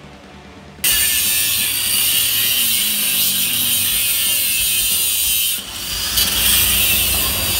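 Gas welding torch hissing steadily while welding a steel Vespa exhaust silencer. The hiss starts abruptly about a second in and dips briefly about five and a half seconds in.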